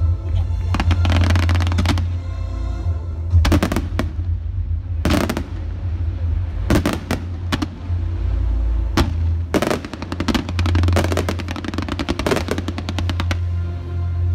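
Fireworks display barrage: volleys of bangs and crackling from aerial shells, scattered at first and then coming in a dense rapid string for several seconds past the middle, over a steady low rumble.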